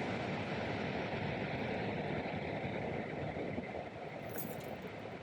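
Faint, steady road and engine noise inside the cabin of a 2004 Lexus RX330 creeping slowly down a snowy road, easing slightly toward the end.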